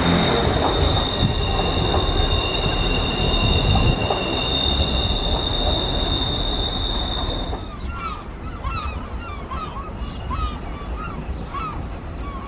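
Wheels of a Northern Sprinter diesel multiple unit squealing on a curve as it pulls away over a low running rumble: one steady high-pitched squeal, joined for a while by a second, lower squeal. The squeal and rumble cut off about eight seconds in, and after that birds call repeatedly.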